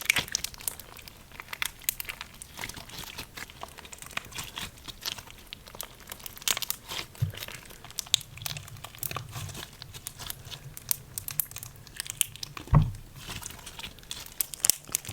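Slime, a little stiff from the cold, being squeezed and kneaded by hand, giving off many irregular crackling pops and clicks. A louder dull thump about thirteen seconds in.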